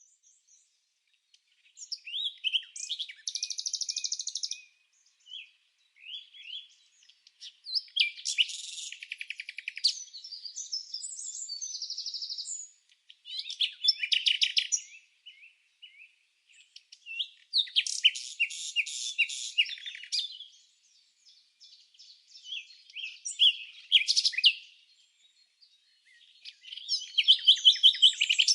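Songbird singing: phrases of high chirps and fast trills, each a second or two long, separated by short pauses.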